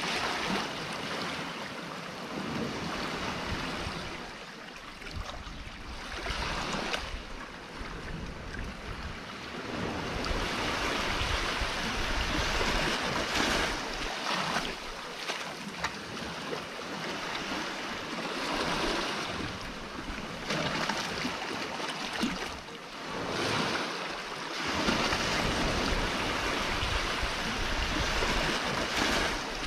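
Sea surf washing in and breaking around the rocks, swelling and ebbing every few seconds.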